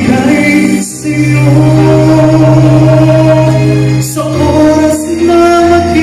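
A man singing through a microphone over instrumental backing, holding long notes with short breaths about one second and four seconds in.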